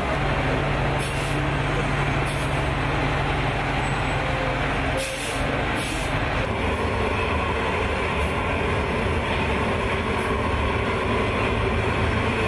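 Steady, loud engine and machinery noise of a heavy military truck in an aircraft's cargo hold. A low hum drops away about five seconds in, and a few short hisses come in the first six seconds.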